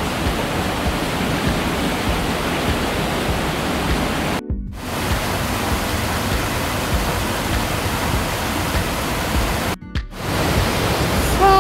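Creek water rushing over rocks and a small cascade, a steady loud rush. It cuts out briefly twice, once near the middle and once near the end.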